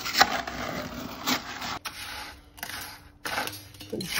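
Concrete mix scraped around the inside of a plastic bucket and tipped into a square steel tube: irregular gritty scraping in several bursts.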